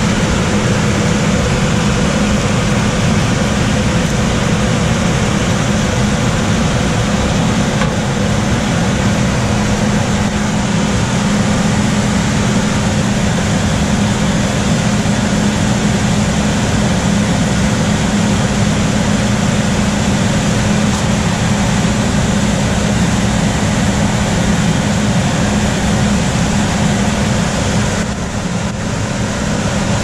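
Coleman manufactured-home gas furnace's blower, driven by a constant-torque ECM motor, running steadily: a loud rush of air with a steady hum underneath, dipping briefly near the end. This is the blower noise the homeowner complains of, which comes from the motor being set on its high-speed tap.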